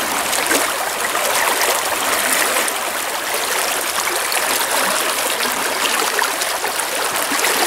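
Fast river riffle rushing steadily around a wading angler, a constant hiss of moving water.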